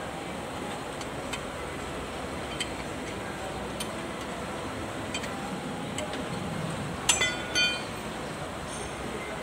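A spanner working the bolts on a tractor's axle housing: faint metallic ticks about every second, then a brief burst of ringing metal clinks about seven seconds in.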